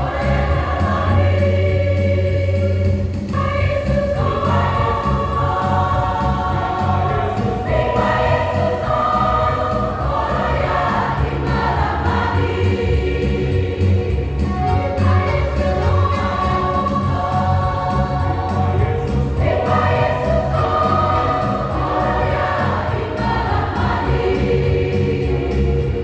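Church choir singing a Christian gospel song in several voice parts.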